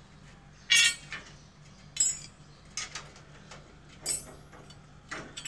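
Light metallic clinks and knocks from the swing tent's steel frame tubes being handled, about six in all, some ringing briefly; the loudest comes a little under a second in.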